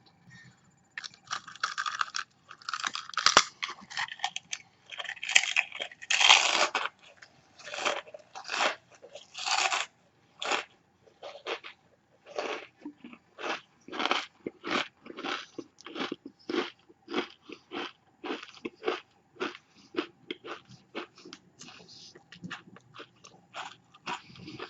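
A person biting into and chewing a mouthful of several potato chips at once: dense, loud crunching for the first ten seconds or so, settling into a steady chewing rhythm of about two crunches a second that grows fainter.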